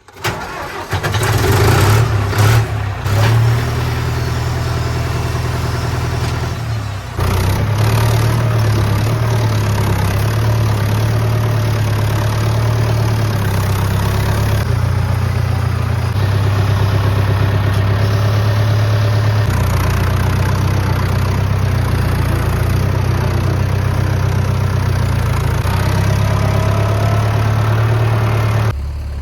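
Diesel tractor engine starting up about half a second in, then running steadily, with a brief dip around seven seconds in.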